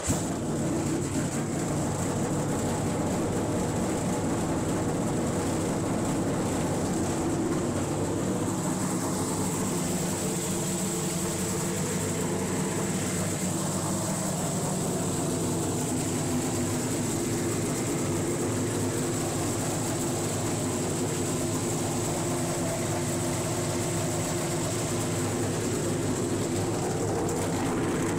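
NASCAR Xfinity-type Toyota GR Supra race car's V8 engine idling steadily, just after being fired up for a start-up and leak check.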